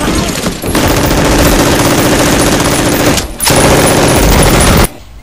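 Rapid automatic gunfire, like a machine gun, in two long stretches with a brief break about three seconds in. It cuts off abruptly near the end.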